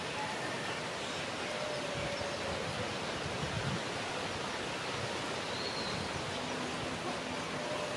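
Steady outdoor background noise, an even hiss-like rush, with a few faint brief tones over it.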